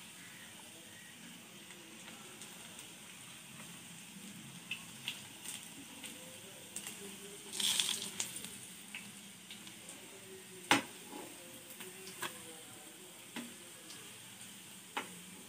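Cabbage and onion bonda batter frying in hot oil: a steady sizzle with scattered sharp clicks and taps, a louder burst of crackling about halfway through, and one sharp click about two-thirds through.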